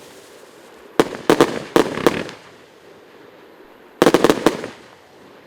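Lesli 'Morse Code' fireworks cake firing: two clusters of rapid, loud bangs from its bursting shells, the first about a second in, the second about three seconds later.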